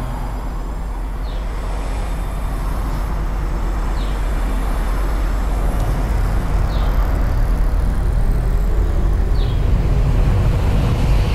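Sci-fi spacecraft engine sound effect: a steady, deep rumble with hiss that slowly grows louder as the ship comes in, with a short high chirp about every two and a half seconds.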